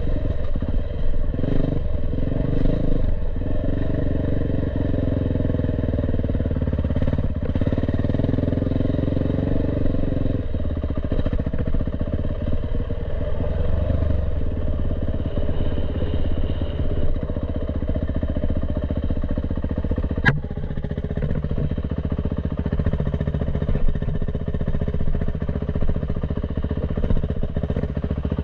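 Dirt bike engine running as it is ridden down a rough dirt trail, the revs rising and falling with the throttle, heard from the rider's helmet. A single sharp click sounds about twenty seconds in.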